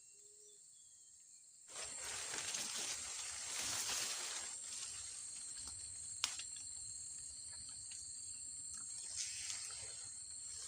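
Outdoor ambience with a steady high-pitched insect drone. About two seconds in, a loud rustling hiss sets in suddenly and carries on, with one sharp click near the middle.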